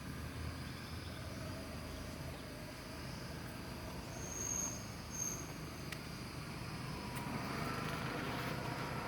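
Outdoor ambience: a steady low background rumble with two short high-pitched chirps about four and five seconds in, growing a little louder near the end.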